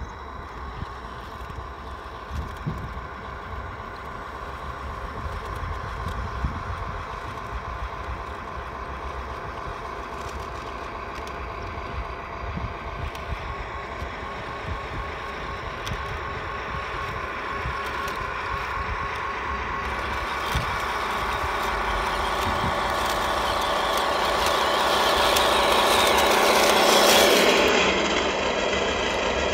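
1/16-scale RC Panzer IV tank running over rough dirt: a steady rhythmic engine sound with small clicks from the running gear, growing steadily louder as the tank comes toward the microphone. The sound is loudest just before it drops suddenly near the end.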